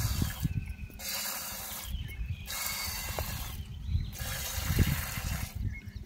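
A goat being hand-milked: a rapid run of milk squirts hitting a steel pot, with a hiss that comes and goes.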